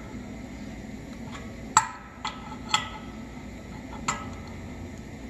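Several sharp metal clinks with a short ring, the loudest about two seconds in, from a wrench and small steel valve parts knocking against the brass drain fittings. A low steady hum runs underneath.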